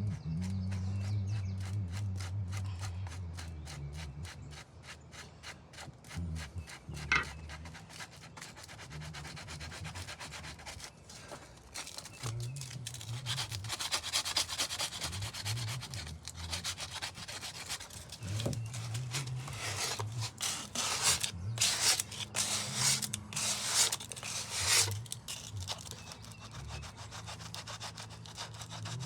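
Rapid, regular back-and-forth hand-sanding strokes on hardened Bondo body filler. They grow louder and harsher through the middle of the stretch.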